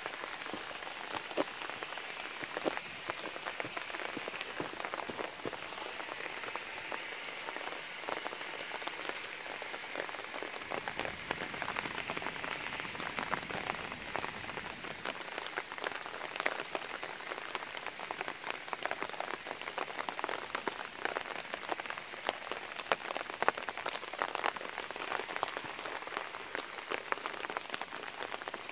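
Light, steady rain falling, with many separate drops ticking sharply close by.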